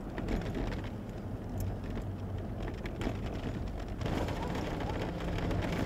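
Vehicle cab road noise: engine and tyres running steadily on a back road. About four seconds in, the tyres move onto gravel and a coarser crunching noise joins the low rumble.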